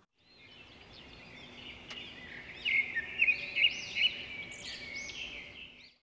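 Birds chirping and singing: many short whistled chirps that fade in, are loudest around the middle, then thin out, over a faint steady hum.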